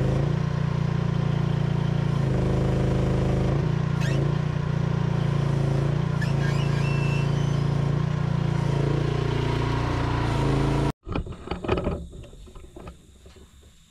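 Micro excavator's engine running steadily while the arm and bucket work through brush, its note shifting a few times as the controls are moved. It cuts off abruptly about eleven seconds in, leaving a brief clatter and much quieter surroundings.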